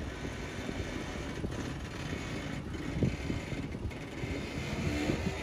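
Toyota 4Runner's engine running steadily as the truck crawls slowly over a rock ledge.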